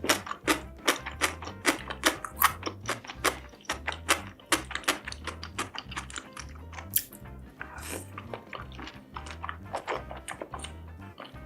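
Close-up crunchy chewing and biting: many sharp, irregular crunches, denser in the first half. A steady low beat of background music runs underneath.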